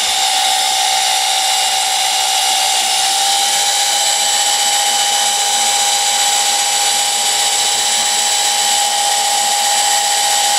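Small electric oil-change pump whining steadily as it sucks warm engine oil up the dipstick tube of an inboard/outboard boat engine; its pitch steps up slightly about three seconds in.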